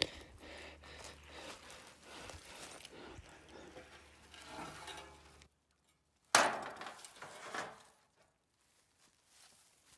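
Light knocking and clattering of handled material for about five seconds, then one loud knock about six seconds in that dies away over a second or so.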